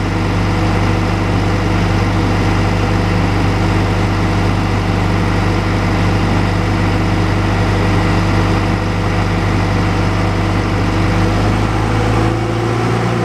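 John Deere 310G backhoe's four-cylinder diesel engine running steadily at about 1240 rpm, its fuel delivery problem fixed. The tone shifts slightly near the end.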